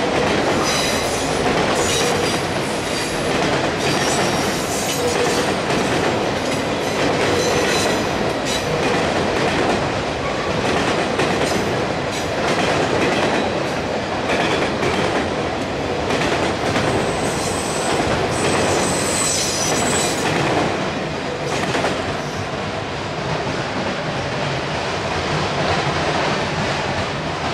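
A long freight train of autorack cars rolling past: a steady rumble and clatter of steel wheels on the rails, with a high wheel squeal coming in twice. The sound begins to fade as the last car goes by at the end.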